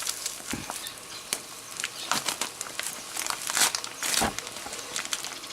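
Packaging of loose-leaf tea bags crinkling and rustling in irregular crackles as it is handled, with a couple of dull knocks.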